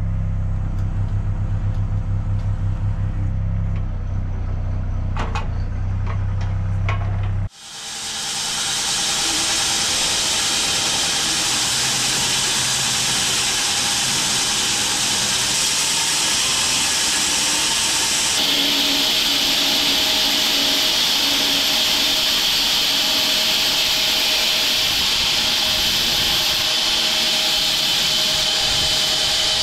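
Bandsaw sawmill at work: first a steady low machine hum, then after an abrupt break a steady loud hiss of the blade sawing through an acacia log. The hiss turns brighter about two-thirds of the way in.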